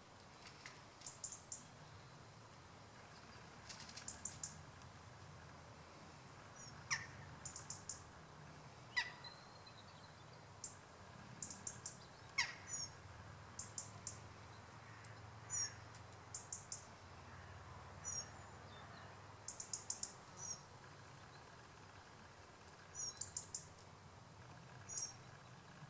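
Small birds chirping: short high chirps in quick groups of three or four, recurring every second or two, with a few sharp calls that drop steeply in pitch. A faint low rumble runs underneath.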